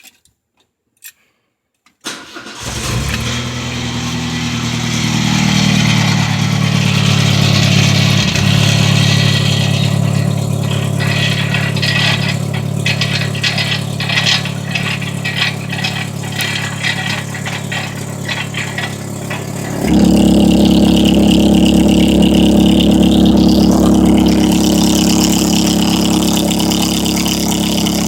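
Volkswagen Gol 1.6 MI's four-cylinder engine starts about two seconds in and runs through a homemade exhaust diffuser, a strong rumble ("ronco forte"). It idles at first, then about twenty seconds in it steps up to higher revs and gets louder.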